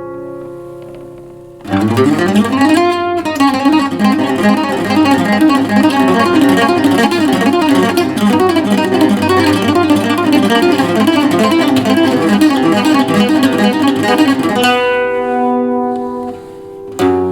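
V-TT21 bajo quinto, a Mexican bass guitar with ten strings in five doubled courses, played solo. A ringing chord dies away, then a fast run of picked notes starts with a slide up the neck and goes on for about thirteen seconds. It ends on a chord left to ring, and new notes are struck right at the end.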